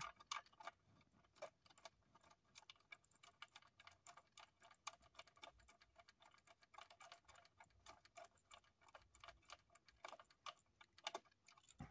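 Faint, irregular small clicks and ticks of hand work on the tiny horn-contact screws and parts in a steering column, with a few sharper clicks near the end.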